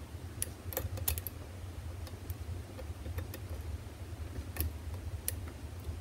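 Faint, irregular clicks and scrapes of a short hook pick and tension wrench working the rear pins inside a GreenteQ anti-snap euro cylinder lock, over a steady low hum.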